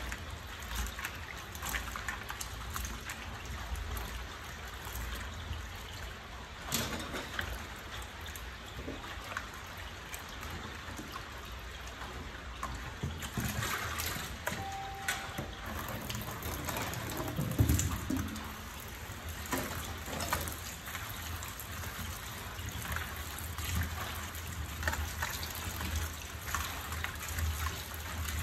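Hands washing cut fruit chunks in water in a plastic basin in a metal sink: water sloshing and splashing, with many small knocks and one louder thump about two-thirds of the way through. In the later part, tap water runs into the basin.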